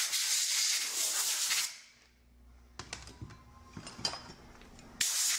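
Compressed-air blow gun hissing as it blows debris and old glue dust out of a variable-speed motor pulley disc: one blast for about the first second and a half, another starting near the end. Between the blasts, light clicks and knocks of metal parts being handled on a bench.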